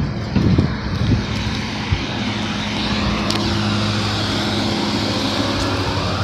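Vehicle engine running with a steady hum as it drives slowly off the weigh scale, heard from inside the cab through an open window, with tyre and wind noise and a few light knocks early on.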